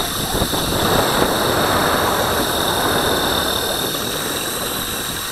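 Electric mountainboard riding over asphalt: a steady rushing of tyres on the rough surface mixed with wind on the microphone, growing a little louder about a second in, with a constant thin high whine on top.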